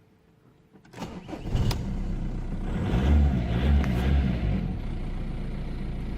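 Volkswagen Passat engine being started: a few clicks about a second in, then it cranks and catches, revs briefly and settles into a steady idle.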